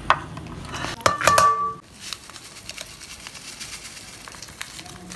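Clinks of eggs and dishware being handled. A cluster of knocks with a brief ringing tone comes about a second in, then faint crinkling as a seasoning packet is emptied over noodles in a steel bowl.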